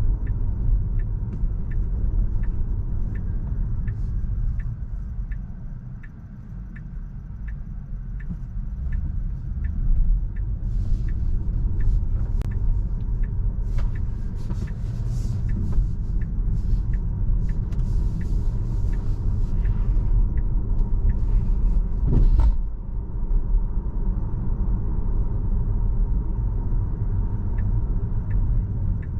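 Road and tyre rumble of a Tesla electric car driving, heard inside the cabin. An even tick repeats about three times every two seconds throughout, and a hiss comes and goes from about a third of the way in until about three quarters through.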